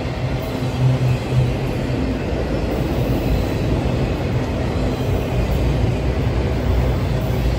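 Empty autorack freight cars rolling past at close range, their wheels on the rail making a steady, continuous low rumble.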